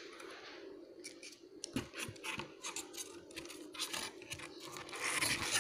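Craft materials being handled on a tabletop: scattered small clicks and scrapes, with a longer rustle near the end.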